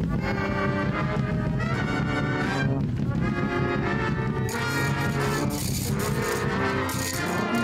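A live brass band playing music in held, sustained notes, with a brighter high hiss joining in about halfway through.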